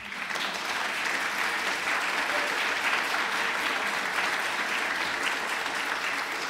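Audience applauding steadily, a dense round of clapping with no let-up.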